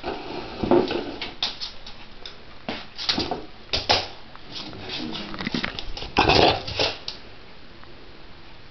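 Beagle making short whines and whimpers in irregular bursts while begging for food.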